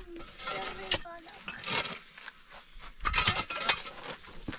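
Hand digging in dry, stony earth with a pick and a hoe: several sharp strikes of the blades into the ground, and soil and stones scraped along.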